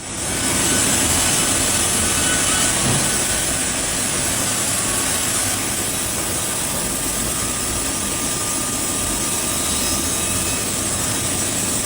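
Sawmill saw and machinery running steadily: a continuous, even hissing noise with no breaks.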